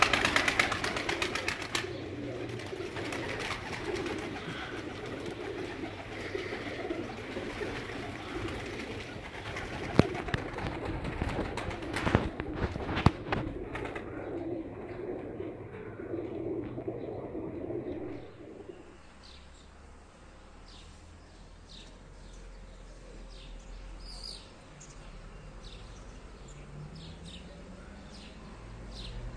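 A flock of Pakistani and Indian high-flyer pigeons cooing together in their loft, with a few sharp claps about ten to thirteen seconds in. About eighteen seconds in the cooing gives way to a quieter low rumble with faint short high chirps.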